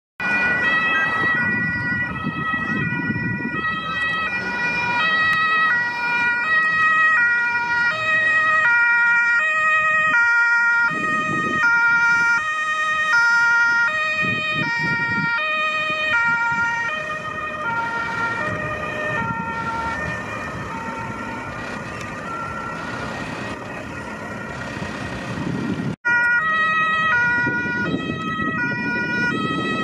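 Two-tone siren (German Martinshorn) of a Ford ambulance on an emergency run, alternating between a high and a low tone, over passing road traffic. It grows fainter past the middle, drops out for an instant near the end, and comes back loud.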